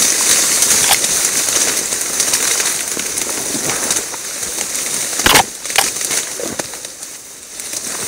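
Rustling, crackling movement through a wet marsh during a duck hunt: a steady hiss that fades off, a sharp crack about five seconds in, and a few fainter snaps after it.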